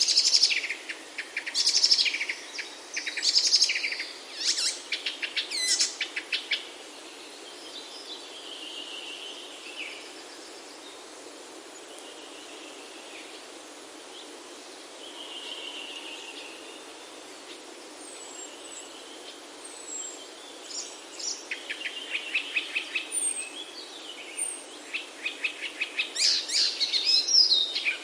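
Songbirds singing: bursts of rapid trills and chirps, busy for the first few seconds and again over the last several, with a quieter stretch of scattered soft calls in the middle, over a steady background hiss.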